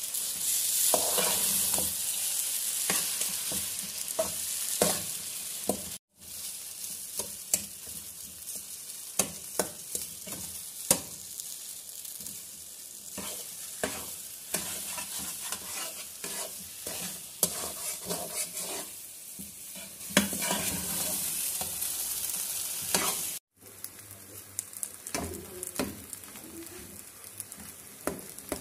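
Sooji halwa sizzling in ghee in a metal pan while a metal spatula stirs and scrapes it, with frequent clicks and scrapes of metal on the pan over a steady frying hiss. The sound breaks off completely twice for a moment.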